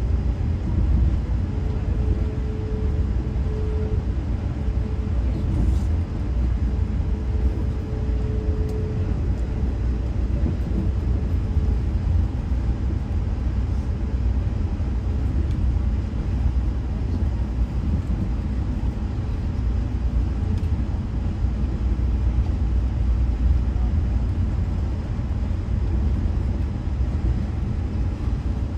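Steady low rumble of an Amtrak Crescent passenger train running, heard from on board, with a faint steady hum over it through the first third.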